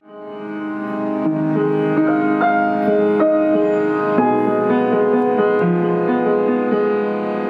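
Piano playing a melody over sustained chords, fading in over the first second.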